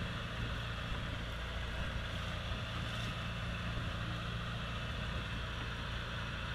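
Engine running steadily aboard a motor fishing boat, a low, even drone.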